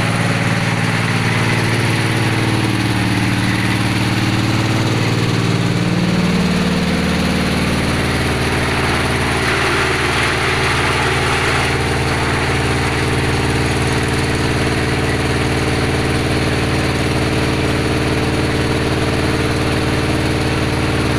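Engine of a well-drilling machine running, its speed shifting over the first few seconds and then holding steady.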